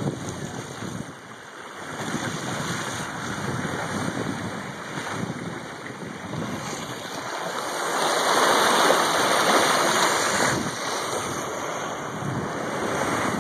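Sea water rushing and splashing along the hull of a sailing yacht under way, with wind buffeting the microphone. It swells louder for a few seconds past the middle, then eases.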